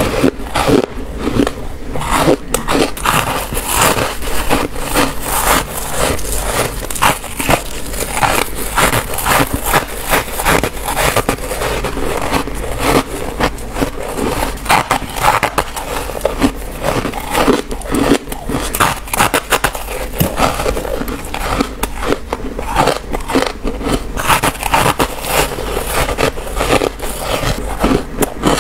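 Close-miked biting and chewing of chunks of freezer frost: a dense, irregular run of crisp crunches that keeps going without a break.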